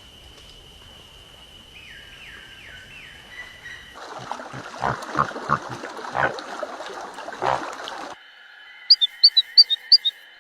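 Bird chirping: a quick run of about eight short, high chirps near the end, with a few falling whistles early on. In the middle there is a stretch of noise with soft thumps.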